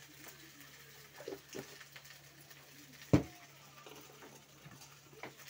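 Quiet kitchen sounds: a few light knocks, then one sharp thump about three seconds in, over a low steady hum.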